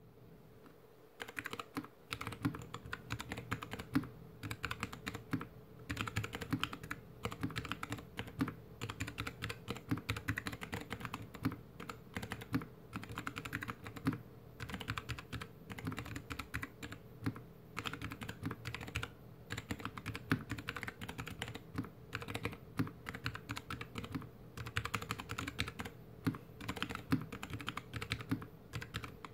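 Slow, steady typing on a GK61X mechanical keyboard with stock Kailh BOX Mute Jade switches, a stainless steel plate, plastic case and DSA keycaps, the board sitting directly on a desk. Irregular key presses and returns start about a second in and keep up at an unhurried pace.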